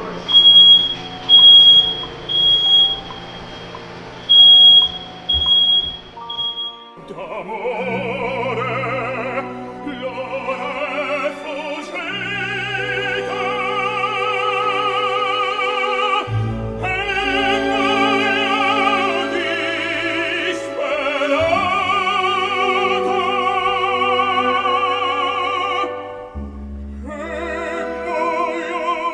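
A smoke alarm sounding in a smoke-filled room: a shrill, piercing beep repeated in groups of about three, set off by the smoke. After about six seconds the alarm stops and operatic singing with orchestral music plays.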